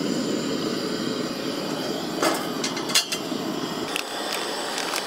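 Two-burner propane camp stove burner, just lit, running with a steady hiss, with a few sharp clicks and knocks from utensils and cookware.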